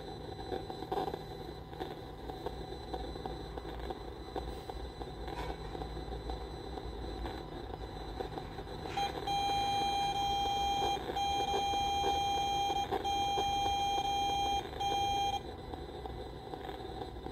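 Electronic beeping alarm: a steady high tone that starts about halfway through and sounds as four long beeps over about six seconds, then stops. Under it runs a steady low background noise.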